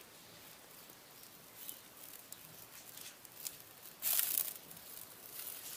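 Fire crackling in the firebox of a brick tower barbecue: scattered small pops, with a louder burst of hiss about four seconds in.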